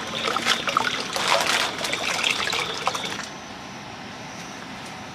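Water pouring from a plastic bottle into a steel pot of water, splashing and trickling. It stops about three seconds in, leaving a quieter steady background.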